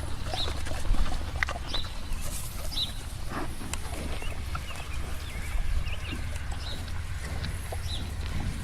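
Farm animal sounds: short high chirps repeating about once a second over a steady low rumble, with a few knocks.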